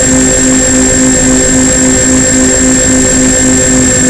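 Twin electric motors and propellers of a Multiplex Twinstar II model plane in flight, heard through its onboard FPV camera: a steady drone of several tones whose lowest hum pulses about five times a second, over a steady hiss.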